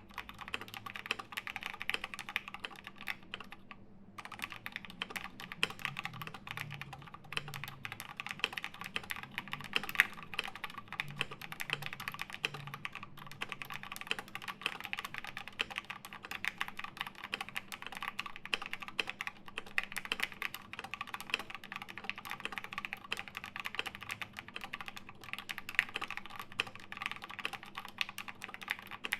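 Continuous typing on a custom mechanical keyboard with lubed Gateron Black KS-3 linear switches fitted with films, an aluminium plate and MT3 keycaps: a steady stream of keystroke clacks with a brief pause about four seconds in. A faint steady hum lies underneath.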